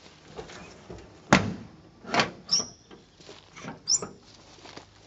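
A handful of knocks and thuds, like a door or lid being handled, the loudest about a second in, with two short high squeaks in between.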